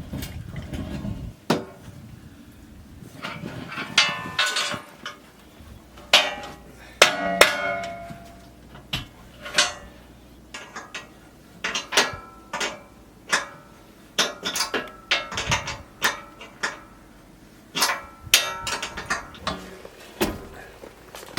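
Irregular metal clanks and knocks, some ringing briefly, as metal hardware is handled and fitted into place.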